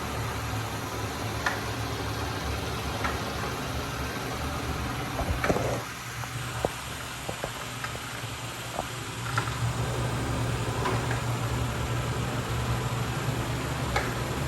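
A steady low mechanical hum with a few light clicks. It drops away about six seconds in and comes back about four seconds later.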